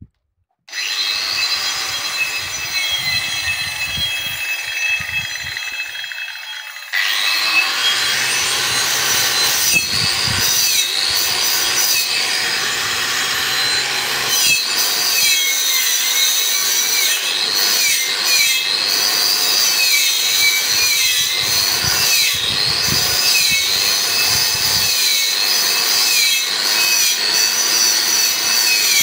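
Angle grinder with a flap disc starts about a second in and runs. About seven seconds in it gets louder as it bites into the steel of a greenhouse arch, grinding off rust, its whine wavering and dipping in pitch as it is pressed into the metal.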